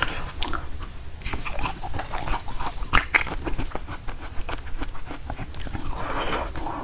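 Frozen basil-seed ice balls crunching and cracking as they are bitten and chewed close to the microphone: an irregular run of small crackling crunches, with one sharper crack about three seconds in.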